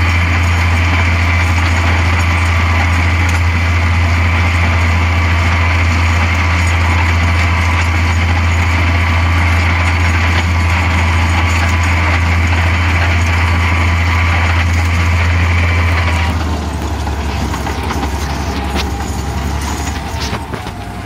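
IHC 956 tractor's six-cylinder diesel running steadily under load, heard from the cab, with a steady mechanical whine over the engine's low hum. About sixteen seconds in the engine is throttled back: the level drops and the whine stops.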